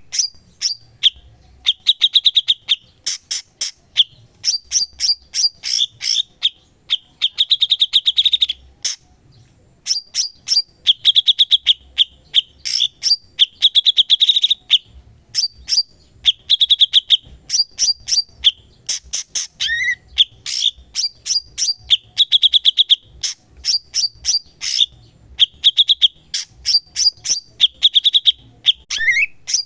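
Cucak cungkok songbird singing continuously: rapid runs of sharp, clicking notes alternating with bursts of high, fast trills, with a short break about nine seconds in.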